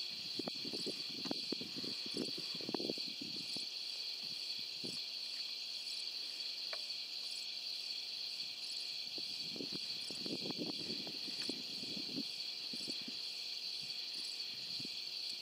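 Night insect chorus, a steady high-pitched buzz with a faint regular pulse. Bouts of low crackling rustles come through in the first three seconds and again from about nine to twelve seconds in.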